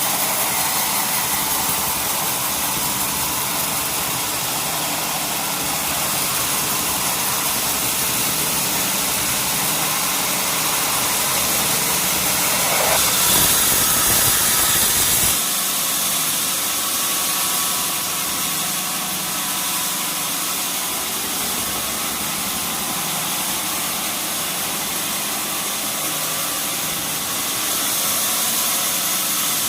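Sawmill machinery running steadily, with a loud mechanical hum and hiss. It grows louder for a couple of seconds about halfway through, then the low rumble drops away while the machine keeps running.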